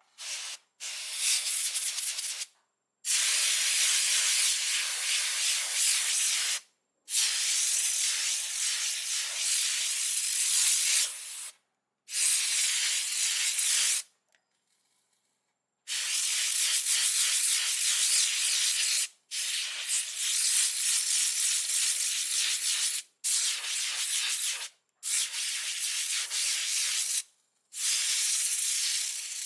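Rough abrasive rubbing, like sanding, in about nine stretches of two to four seconds, each starting and stopping abruptly.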